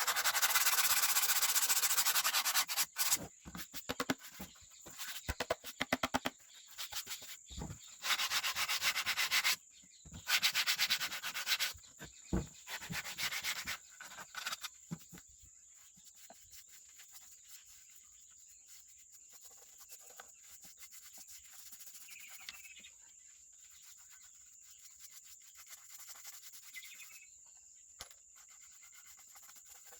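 Sanding by hand in several bursts of fast back-and-forth strokes through the first half, stopping after about fourteen seconds. After that only a faint, steady, high insect chirr remains.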